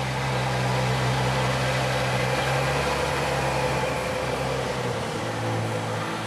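Car engine idling with a steady low hum, settling to a slightly lower pitch about five seconds in.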